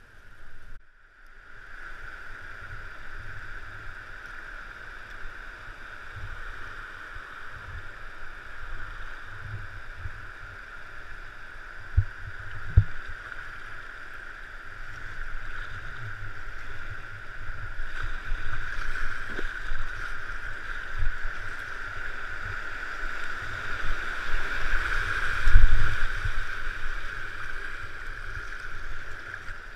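Rushing river water heard from a kayak, a steady hiss that grows louder in the second half as the boat nears a rapid, with scattered low thumps and a couple of sharp knocks from the paddle and hull.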